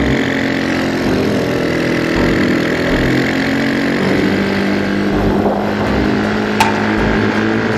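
Motorcycle engine running at a steady speed while riding.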